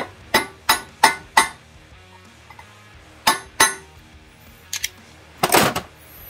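Sharp metal-on-metal strikes with a short ring: a hammer tapping an old flathead screwdriver to stake the freshly pressed bushing in a Ford AOD/4R70W transmission pump. Five quick taps at about three a second, then two more a couple of seconds later, with a short rustle near the end.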